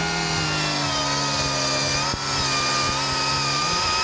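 Senix cordless electric chainsaw running and cutting into a log, a steady motor whine whose pitch wavers a little under load. It breaks off briefly near the end and picks up again.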